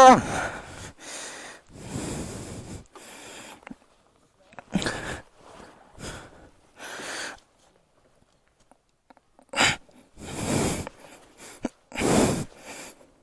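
A person breathing hard close to the microphone: loud, noisy breaths at irregular intervals, with a pause of a couple of seconds past the middle.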